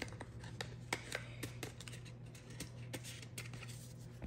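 Hands handling small items and wrapping: light, irregular clicks and taps, several a second, over a faint steady hum.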